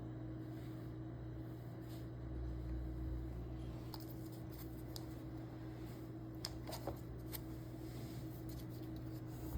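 A few small, sharp clicks and taps of something being handled, starting about four seconds in, over a steady low hum.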